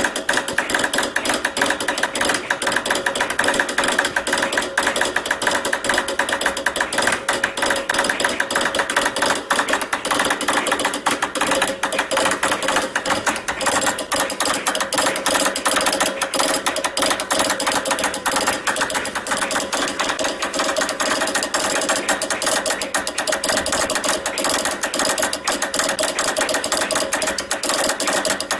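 Telegraph key being worked very fast to send Morse code: a continuous run of rapid mechanical clicks with no pause.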